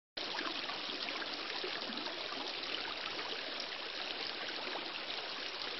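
A steady rushing noise, like running water, that cuts in abruptly just after the start and holds even, with no pitch or rhythm in it.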